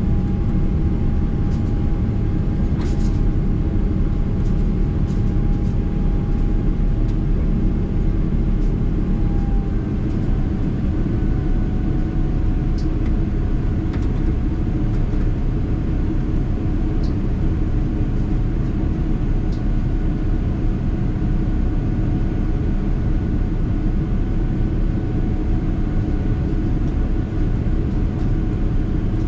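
Cabin noise of a Boeing 777-300ER climbing out after takeoff, heard from a window seat: the steady rush and rumble of its GE90 engines and the airflow. A steady whine in it drops a little in pitch about ten seconds in.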